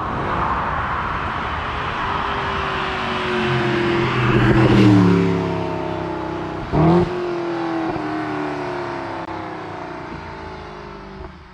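Mercedes-Benz SLS AMG Roadster's 6.2-litre naturally aspirated V8 accelerating past. The engine note swells to its loudest about five seconds in, then drops in pitch and fades as the car pulls away. There is a short, loud burst about seven seconds in.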